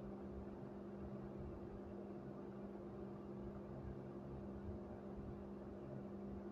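Faint, steady electric hum with a soft hiss, typical of an aquarium pump running.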